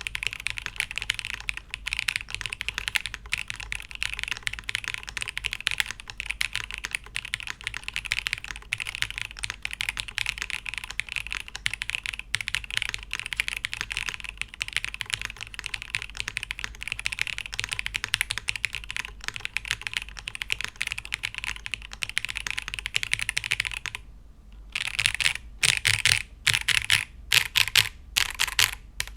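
Typing on a Chilkey ND TKL mechanical keyboard fitted with Kailh Blue Lotus switches: a fast, continuous run of keystrokes, then a short pause near the end followed by separate, louder single key presses.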